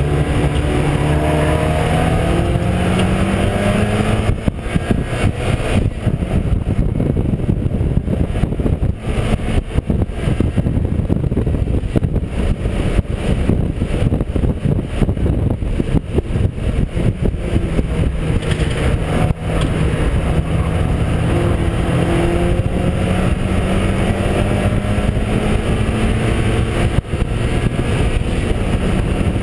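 Mazda MX-5 race car's four-cylinder engine heard from on board at racing speed, with heavy wind and road noise. It climbs in pitch under acceleration near the start, runs at speed through the middle, and climbs slowly again in the last third.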